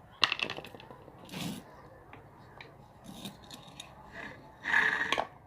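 Hand tools at work on a washing machine motor: sharp metal clicks with scraping and rubbing, the loudest click just after the start and a longer scrape near the end.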